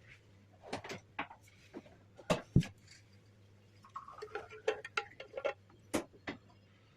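Kitchen utensils and containers being handled: scattered clicks and knocks, the loudest two close together a little over two seconds in, then a quick run of small clicks and scrapes about four seconds in.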